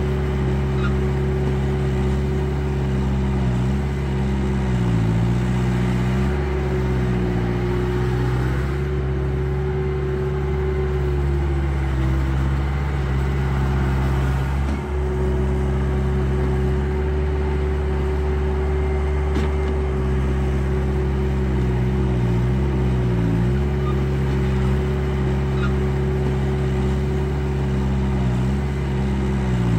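Simulated diesel engine sound of a 1:14 scale RC Takeuchi TL12V2 tracked skid steer loader, running steadily with short dips in pitch every few seconds and a longer sag about halfway through.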